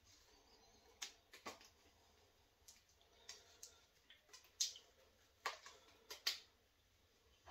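Faint, scattered sharp clicks and light taps from a small hard cylindrical object being turned and worked in the hands.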